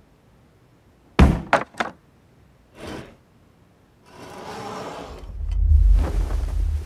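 Cartoon sound effects: three sharp knocks in quick succession, a softer thump, then a deep rumble that swells and stays loud near the end.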